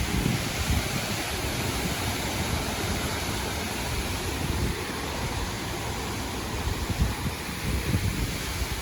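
Storm wind blowing, a steady rush with uneven low buffeting on the microphone.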